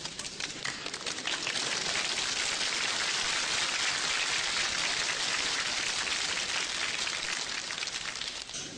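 A steady, dense crackling hiss like rain falling on a surface, dying away near the end.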